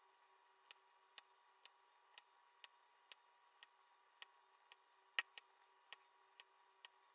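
Diamond painting pen clicking resin drills into place on the adhesive canvas, in a steady run of sharp clicks about two a second, one louder click about five seconds in.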